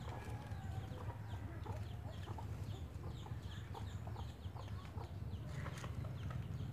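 Chickens clucking and chirping, many short falling calls, over a steady low background hum, with a few light clicks from a knife cutting a pumpkin.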